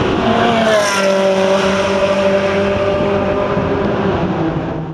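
Race car engines on a circuit straight: one car's engine note drops slightly in pitch as it passes, about half a second in, then a steady engine note carries on.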